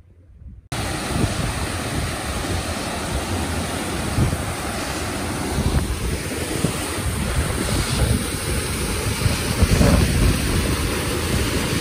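Loud, steady rush of waterfall water, cutting in abruptly about a second in, with wind buffeting the microphone.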